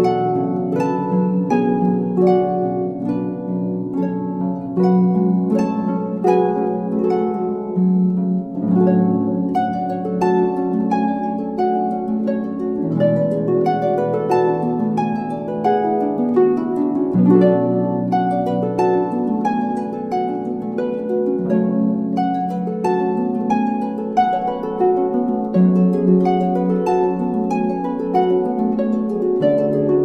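Harp playing a flowing piece: a steady stream of plucked, ringing notes over low bass notes that change every few seconds.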